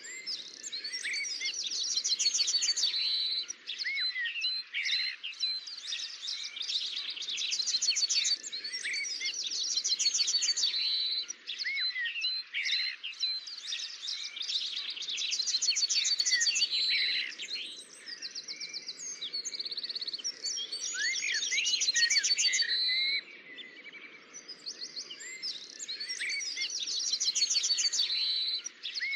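Songbirds singing: fast trilled phrases a couple of seconds long, repeated again and again with short pauses, over a faint low background hum.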